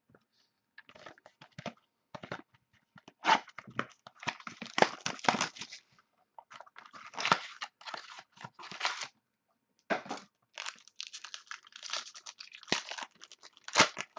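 Hands handling and sliding a stack of trading cards, then crinkling and tearing open a foil card pack near the end, in a run of short, irregular crackles and rustles.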